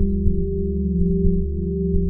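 Ambient drone soundtrack: several steady low tones held together, with soft low double thumps about once a second like a heartbeat.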